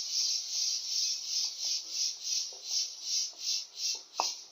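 An insect calling: a high, pulsing buzz that swells and fades about twice a second. A brief click comes near the end.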